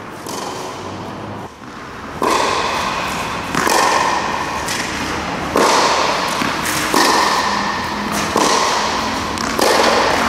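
Tennis ball struck repeatedly with a Babolat racket and rebounding off a practice wall, a hit every second and a half or so from about two seconds in, each sharp thud followed by the echo of the hall.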